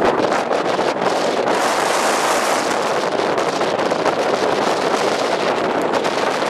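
Gale-force wind (Beaufort 8–9) blasting across the microphone: a loud, steady rush of noise.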